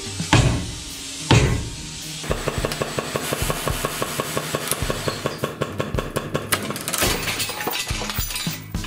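Two hard hammer blows on the car's steel front-end parts in the first second and a half, each with a short metallic ring, followed by a fast, even clatter of metallic clicks, about eight a second, that turns irregular near the end.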